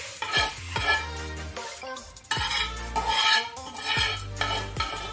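Metal spatula scraping across a flat pan (tawa) in irregular strokes, pushing fried onion and curry-leaf masala off onto the fish. Background music plays underneath.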